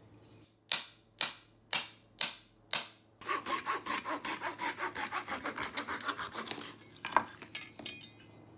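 Wood rubbing on wood as a board is slid along a freshly adjusted sliding dovetail joint. There are five separate strokes about half a second apart, then a quick run of short back-and-forth strokes for about three and a half seconds, then a single knock.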